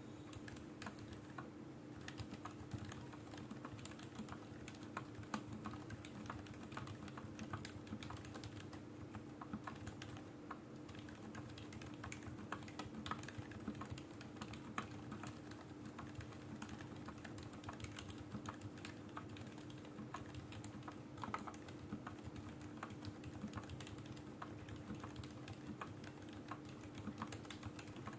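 Continuous typing on a Keychron K6 mechanical keyboard with Cherry MX Silent Black switches and ABS keycaps in a plastic case with an aluminium frame. It gives a quiet, steady stream of soft, dampened keystrokes over a constant low hum.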